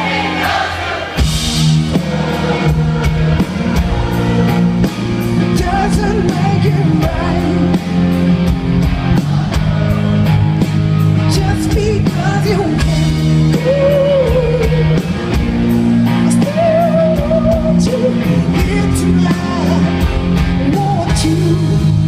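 Live rock band playing over a large concert PA, with the audience singing along to the melody, heard from within the crowd.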